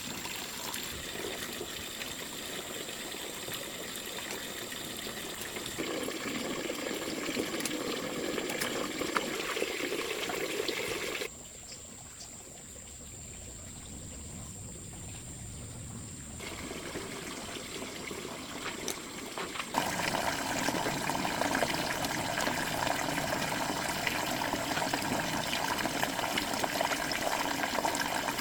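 Water running and trickling in several cut segments that differ in loudness. The sound changes abruptly about six, eleven, sixteen and twenty seconds in, and is quietest in the middle stretch.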